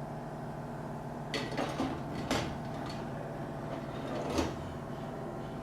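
A few short metallic clinks and rattles of engine timing parts being handled, over a steady background hum.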